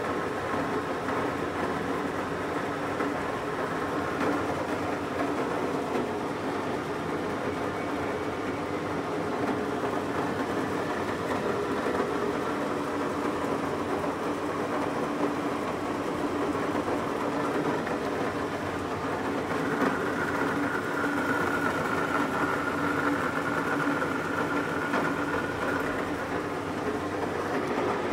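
Supermax G-2238 engine lathe running, a steady mechanical hum from its gearing with a higher whine that joins in about two-thirds of the way through.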